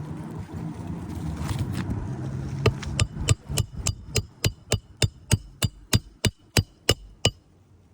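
A hammer striking a roofing nail in an asphalt shingle roof: a run of about sixteen sharp, evenly paced blows, about three a second, each with a short metallic ring. The blows start after a steady low rumble of a couple of seconds.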